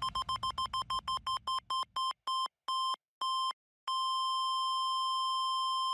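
Electronic beep closing out an electronic music track: a steady-pitched beep repeats rapidly, slows down to a few beeps a second, and after a short gap becomes one long unbroken tone. The last of the music's low end fades out under the first beeps.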